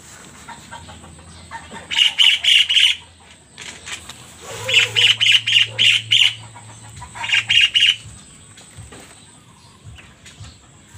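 Three quick series of high, rapid chirps, four to six notes in each, from a small animal calling, over a faint low hum.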